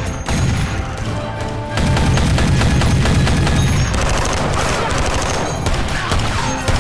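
Automatic rifle and submachine-gun fire in a film shootout: rapid overlapping bursts from several guns, growing denser about two seconds in.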